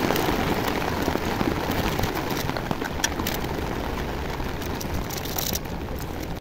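Heavy rain on a tent's fabric, heard from inside the tent: a dense, steady hiss with scattered sharper drop hits.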